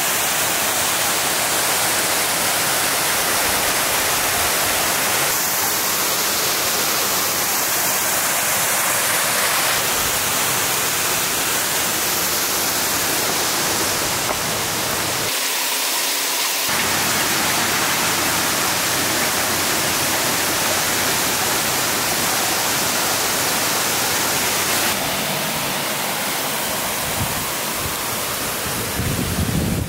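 Steady, loud rush of water falling over rocks, like a small waterfall or dam spillway. Its tone shifts slightly every few seconds, and the deepest part drops out briefly about halfway through.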